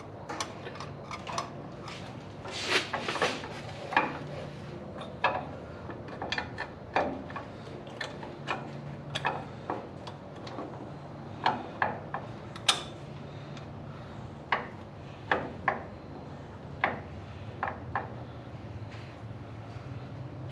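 Metal hardware and hand tools clinking and clanking irregularly as an upper ball joint is fitted and bolted onto a truck's front upper control arm, with several sharper knocks. A faint steady low hum runs underneath.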